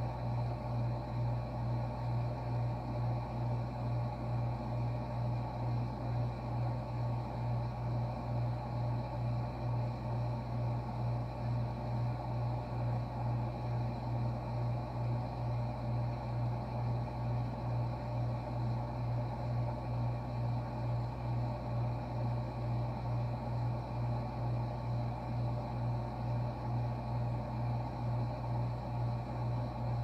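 Refrigerator compressor running: a steady low hum that throbs evenly a few times a second, with a faint steady whine above it.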